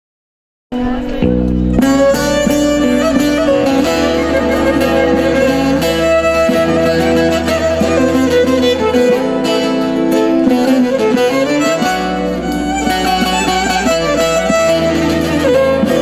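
Music starts suddenly about a second in: an upright bowed Turkish folk fiddle plays a melody, with a plucked long-necked lute and a steady low bass beneath.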